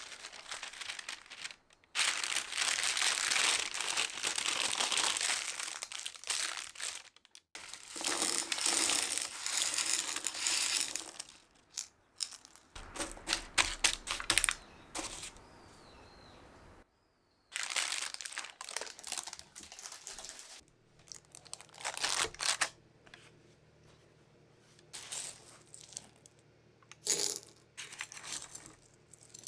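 Kitchen handling noises during tart-making: two long stretches of rustling and scraping, then scattered short taps and clicks.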